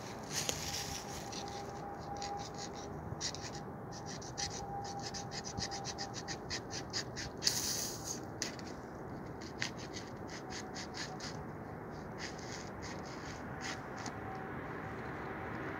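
Handling noise: a run of quick scratchy clicks and rubbing, densest in the first half and thinning out after about eight seconds, as hands work at the top of a plastic Coke bottle.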